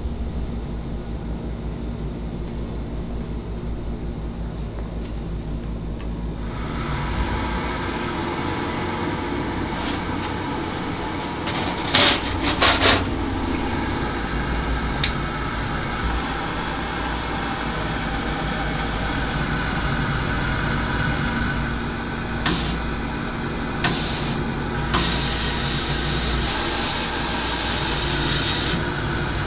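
Sandblasting cabinet running with a steady machine hum, and a few sharp clanks about halfway through as the lid is handled. Near the end a loud hiss of compressed air and grit sprays over 3D-printed metal pen parts inside the cabinet.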